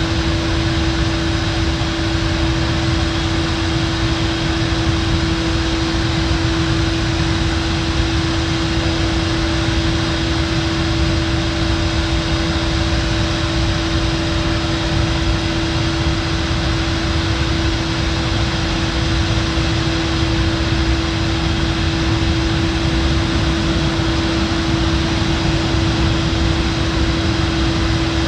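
Petrochemical plant machinery running: a steady industrial drone of low rumble and hiss, with one constant humming tone over it.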